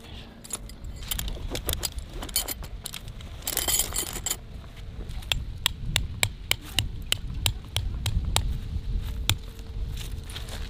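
Metal tent stakes clinking together, then a run of sharp taps, about three a second, as a hook-shaped steel tent stake is driven into the ground.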